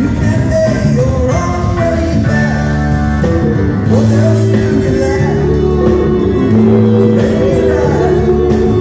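Live rock band playing: organ, electric guitar, bass and drums, with voices singing over held organ chords.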